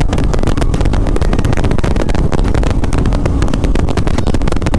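Motorcycle riding at highway speed, with heavy wind buffeting on the microphone making a steady, rough, crackling rumble over the engine.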